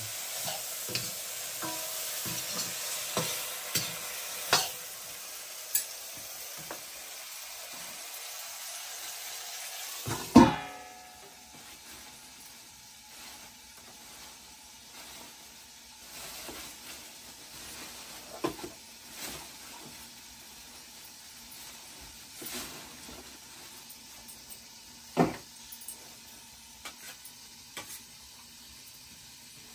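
Soybeans and green beans sizzling in an iron wok over a wood fire, stirred with a metal ladle that scrapes and taps the pan. About ten seconds in a loud metal clank as the lid goes onto the wok; after it the sizzle drops to a faint hiss with scattered small clicks and knocks.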